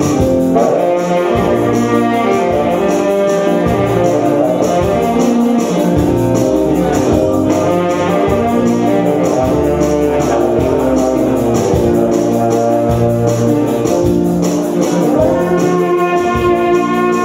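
Saxophone playing a melody of held notes over a bass line and a steady beat.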